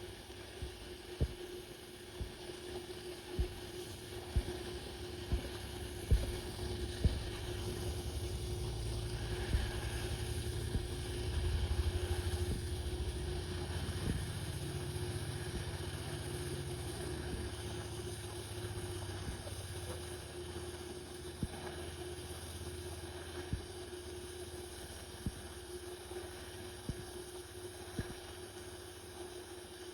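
TIG welding arc running steadily: a constant hum over a hiss, swelling for a few seconds near the middle, with scattered sharp ticks.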